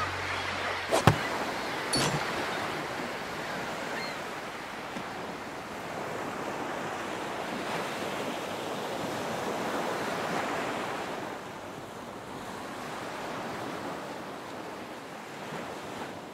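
Sea waves washing steadily, with two sharp knocks about one and two seconds in; the wash swells and eases, then fades out at the end.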